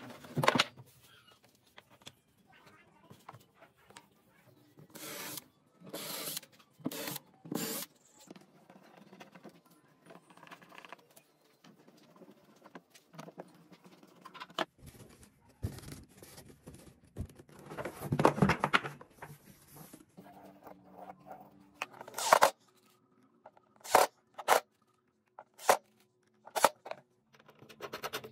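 Wooden parts being handled on a workbench: a string of short knocks, slides and scrapes, with a longer scratchy stretch of a hand screwdriver driving screws into the wooden clock back.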